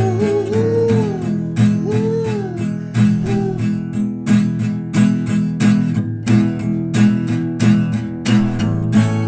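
Instrumental rock music: guitar strummed in a steady rhythm of about two strokes a second, with a sliding, bending lead melody over it in the first few seconds.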